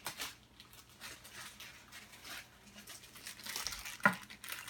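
Cardboard blind box and the foil bag inside being torn open and crinkled by hand, in scattered rustling strokes. About four seconds in comes one brief, sharp pitched sound, the loudest moment.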